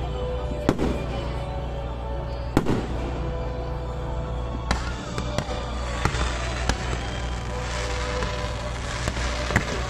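Fireworks display: aerial shells going off in irregular sharp bangs, about seven of them, with a denser hissing crackle building up over the second half as more fireworks rise. Music plays underneath.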